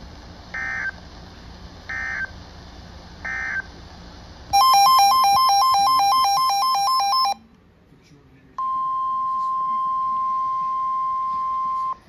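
Emergency Alert System end-of-message data bursts: three short digital screeches about a second and a half apart. Then a loud electronic alarm warbles rapidly between two tones for about three seconds, and after a short pause a steady single tone near 1 kHz, the NOAA Weather Radio alert tone, sounds.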